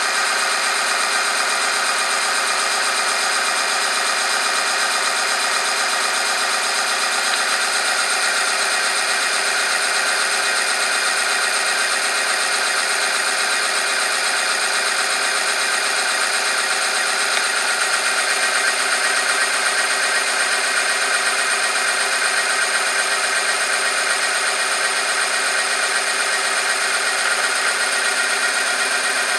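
Electric motor of an oil film strength tester running steadily, its rotating roller rubbing against a test sample under a weighted lever in hot engine oil: an even mechanical whir with many steady tones. Running on means the oil film is still holding under the load.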